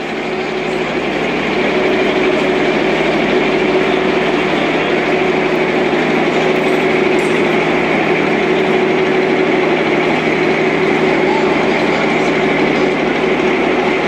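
Electric screw-column lifting jacks running together under a raised shunting locomotive: a steady motor hum and whine that builds over the first couple of seconds and then holds level.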